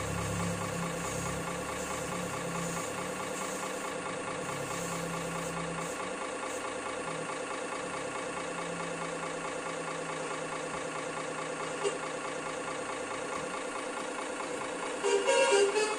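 An RC model truck's engine-sound module plays a simulated diesel idle through its small speaker: a steady, unchanging drone whose low rumble thins out partway through. About a second before the end, louder music starts from the truck.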